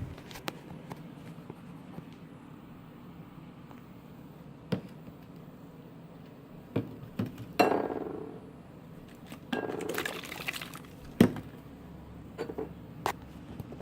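Scattered clinks and knocks of containers and utensils being handled, with two noisy stretches of about a second each in the middle, typical of liquid being poured.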